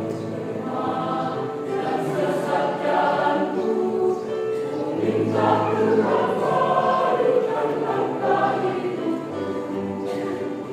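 Church choir singing a hymn in several voice parts, with long held notes.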